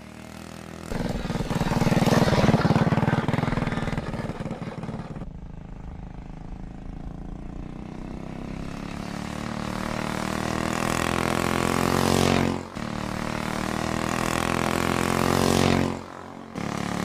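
Monowheel motorcycle engine running hard under acceleration. Its pitch climbs steadily and breaks off sharply twice, about twelve and sixteen seconds in, each time picking up again at a lower pitch.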